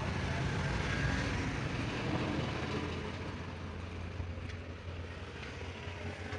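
A vehicle engine running steadily with a low, even hum that gets slightly quieter toward the end.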